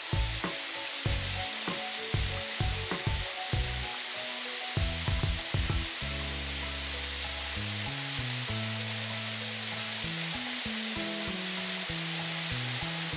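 Steady hiss of a car-wash water spray sound effect, with background music underneath.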